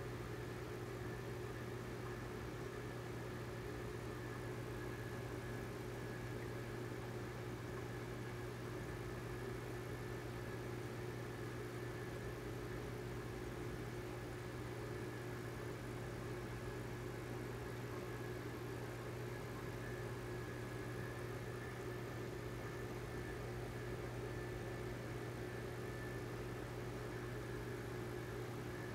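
Steady, unchanging hum of running aquarium equipment: the air pump and filters.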